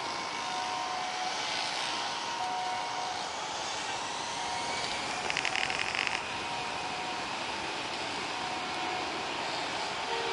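Twin-engine jet airliner's engines running on the runway as a steady rushing hiss with a faint whine, mixed with road traffic passing close by: a coach and motorcycles. A short rapid rattle stands out about five seconds in.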